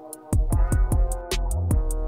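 Background music: an electronic beat with a kick drum about three times a second, quick hi-hat ticks and held synth chords, briefly cutting out at the very start.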